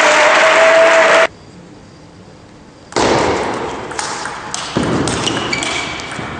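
A loud, noisy din cuts off suddenly about a second in, followed by quiet. From about three seconds in, a table tennis rally is heard: the ball clicks sharply off bats and table, and the hits come closer together near the end.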